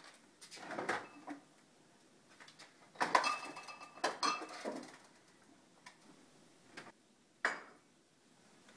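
A refrigerator door is pulled open, then glass bottles and jars in the door shelves clink and rattle, ringing briefly, as a milk carton is lifted out. A single sharp knock follows near the end.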